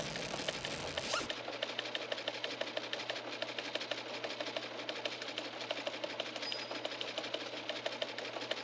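A steady, rapid mechanical clatter of many small ticks a second, with a brief whoosh in the first second.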